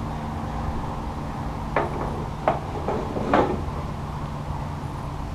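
A few short knocks and clacks, about four in quick succession, from metal motorcycle parts being handled, over a steady low background hum.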